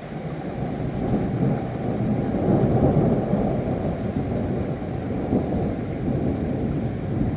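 Thunder rolling over steady rain: a deep rumble swells over the first two to three seconds, then keeps rolling.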